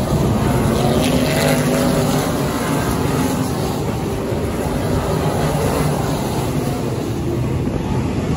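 Dirt-track limited modified race cars' V8 engines running hard in a pack: a steady, dense engine drone that swells for a moment about a second in as a car passes close.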